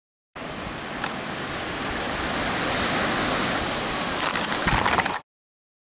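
Ocean surf washing onto a sandy beach, a steady rush that swells slightly, with a sharp click about a second in and a flurry of crackling knocks near the end before it cuts off suddenly.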